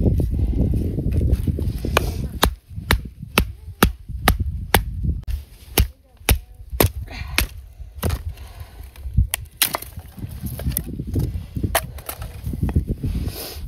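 A rapid, irregular series of sharp knocks or cracks, about two to three a second, over a low rumble of wind on the microphone.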